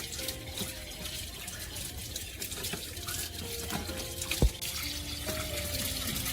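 Running water, a steady hiss, over soft background music with short held notes; a sharp click about four and a half seconds in.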